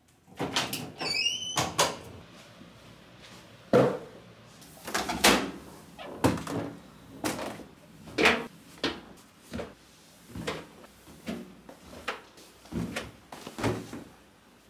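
Clothes being tossed and pushed into the drum of a Whirlpool front-loading washer: fabric rustling and dull knocks against the drum, coming irregularly about once a second. A short rising squeak sounds about a second in.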